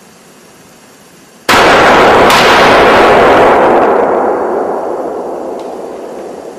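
A hunting rifle shot, sudden and very loud, about a second and a half in, followed by a long rolling echo that fades slowly over several seconds.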